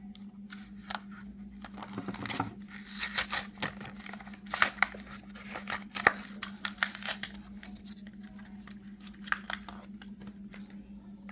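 A Hot Wheels die-cast car's card-and-plastic blister package being opened: irregular tearing, crinkling and scraping with sharp clicks, busiest from about two to seven seconds in and sparser after. A steady low hum runs underneath.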